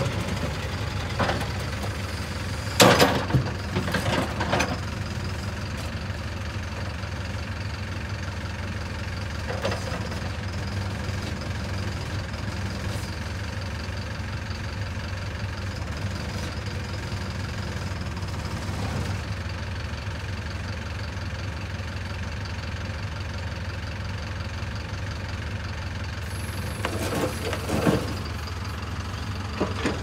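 Caterpillar 446B backhoe loader's turbo diesel engine idling steadily, with a few short loud clunks about three to five seconds in and again near the end.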